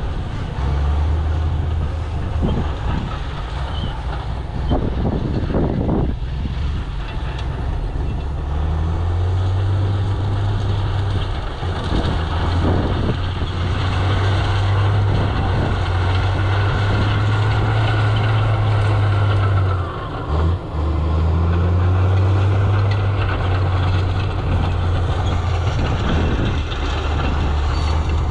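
Heavy diesel earthmoving machinery running steadily under changing load, its low engine note stepping up and down, with brief louder noisy stretches about 5 and 12 seconds in.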